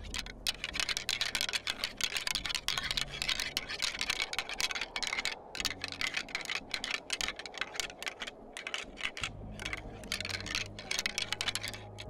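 Deer rattling antlers being clacked and ground together in rapid, irregular runs of clicks, with a brief lull about eight seconds in: a rattling sequence that imitates two whitetail bucks sparring in the rut, to draw bucks in.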